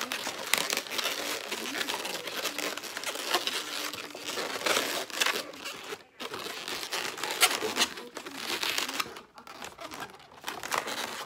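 Inflated latex 260 twisting balloons rubbing and squeaking against each other and against the hands as they are handled, twisted and fitted into place. It is a dense, rustling texture broken by many short, sharp squeaks.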